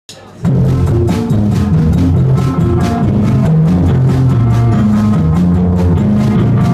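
Live rock band: a drum kit played with sticks keeping a steady beat, under an electric guitar playing a low riff. The music comes in suddenly about half a second in.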